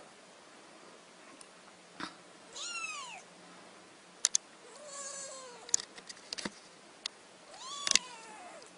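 Very young kittens mewing: three thin, high mews a couple of seconds apart, each rising and then falling in pitch. A few sharp clicks fall between and over them.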